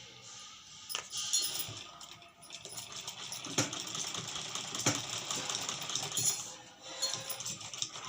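Rustling and handling noises with a few sharp clicks, as the blouse fabric and its piping are worked by hand.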